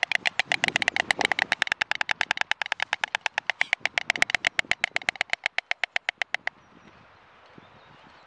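White storks bill-clattering: a rapid, even wooden rattle of about eight to ten strokes a second that stops abruptly about six and a half seconds in. It is the pair's joint clattering display in defence of the nest against an intruding stork.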